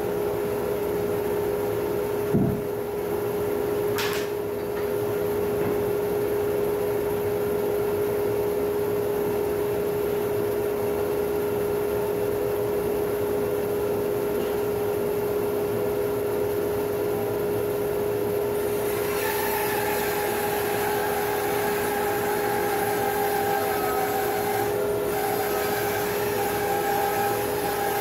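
A 2.5 hp Laguna 14BX bandsaw runs with a steady hum while its blade resaws a plum log. There is a thump a couple of seconds in. From about two-thirds of the way through, a higher whine and more hiss join as the blade cuts.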